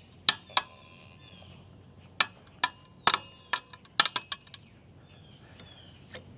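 Solid maple stick, clamped in a vise and twisted with a socket and breaker bar, giving a series of sharp, irregular cracks as it fractures under torsion, with a quick cluster of snaps about four seconds in.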